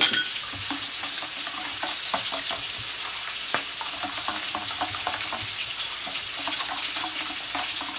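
Wire whisk beating eggs and heavy cream in a stainless steel bowl, with many quick light clicks of the whisk against the metal, over a steady sizzle of bacon frying in a hot pan.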